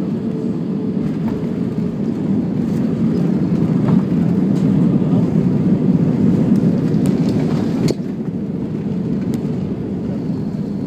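Airliner cabin noise during the landing rollout: a loud, steady rumble of jet engines and rushing air, with the wing's ground spoilers raised. It swells about two seconds in and drops off suddenly at about eight seconds, with light cabin rattles over it.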